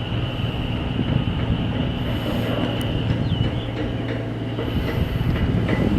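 Steady machinery noise: a continuous low hum with a thin, steady high whine over it and a few faint clicks and knocks.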